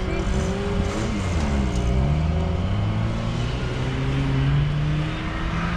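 Off-road 4x4's engine running under load. Its pitch dips about a second and a half in, then climbs steadily as it revs up.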